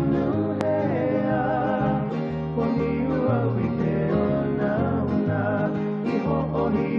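Music: a song with a singing voice over guitar and a steady bass line.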